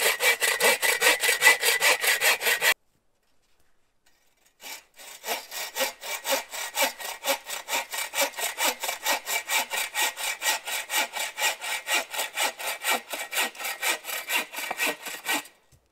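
A 24-inch bucksaw blade cutting through a dry pine pole in rapid, even push-pull strokes. The sawing breaks off about three seconds in and starts again about two seconds later.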